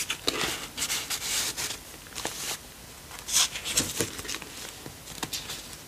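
Pages of a thick handmade paper junk journal being turned and handled: a series of papery rustles and swishes with a few light taps.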